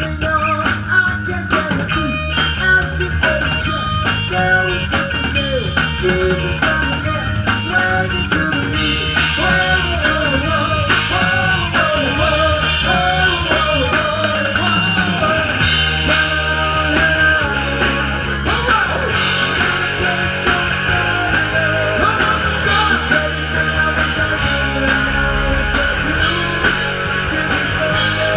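Rock music from a band: singing over electric guitar and drum kit, playing steadily.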